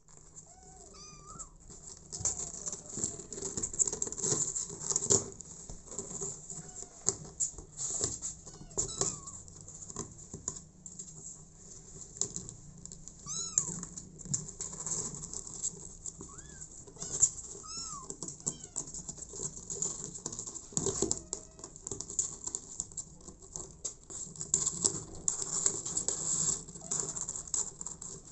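Young kittens meowing now and then in short, arching cries, over a constant light scratching and scrabbling of claws on a cardboard box.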